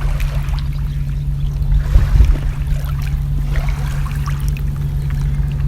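Kayak paddle dipping into the water, with trickling drips and a louder splash about two seconds in, over a steady low hum.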